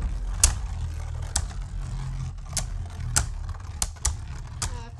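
Two Beyblade Burst spinning tops whirring on a plastic stadium floor, with about seven sharp, irregular plastic clacks; the whir slowly fades as the tops lose spin.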